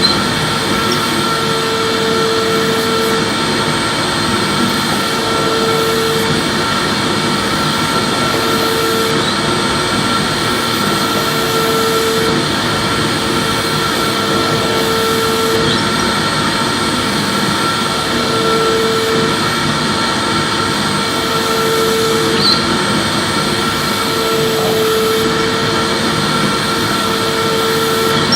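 Electric vacuum cleaner running steadily with a continuous whine, being swept back and forth: a lower hum comes and goes every second or two.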